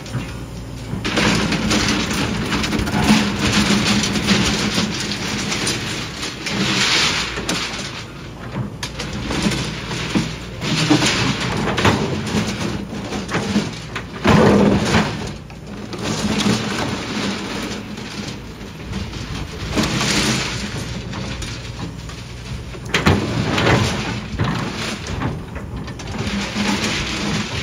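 Hydraulic excavator's diesel engine running under load, with repeated surges of the steel bucket scraping and crunching through dirt and broken concrete slabs with rebar.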